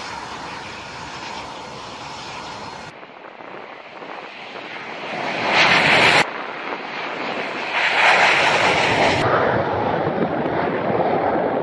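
AV-8B Harrier II's Pegasus turbofan running in flight, a jet roar broken by several abrupt cuts and swelling loudest twice, near the middle and again about two-thirds of the way through.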